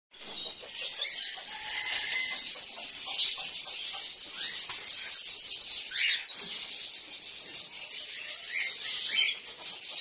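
A flock of cockatiels chirping and calling together: a dense, continuous high chatter with short rising calls over it.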